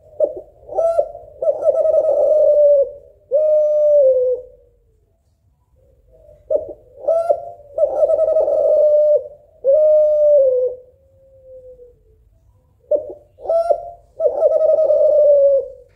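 Caged spotted dove of the Kelantan strain (derkuku) cooing its song three times, about every six seconds. Each phrase is a few short coos followed by longer held coos, one of which drops in pitch at its end.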